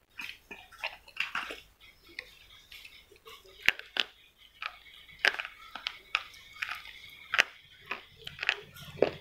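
A slate pencil being bitten and chewed: sharp crunches every second or two, with chewing between them.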